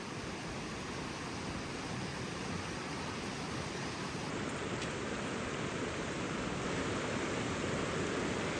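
Steady rushing noise of a flowing river.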